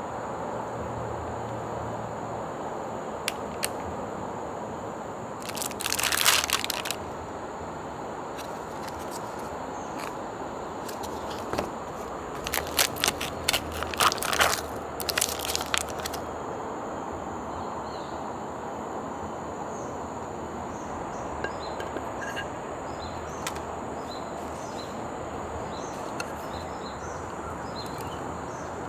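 Crinkling packaging of a Haldiram's soan papdi pack: a short burst of crinkling about six seconds in, then a longer run of crackles between about twelve and sixteen seconds as the foil lid is peeled back from the plastic tray, over a steady outdoor hiss.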